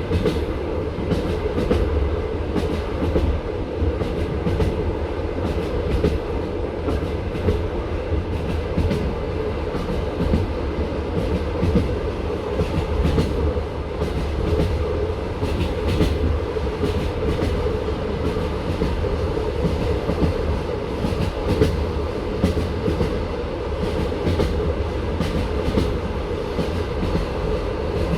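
Passenger train wheels running on the rails: a steady rumble with frequent sharp clicks from the wheels.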